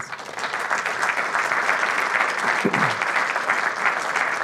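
Audience applauding, many hands clapping steadily, at the close of a presentation.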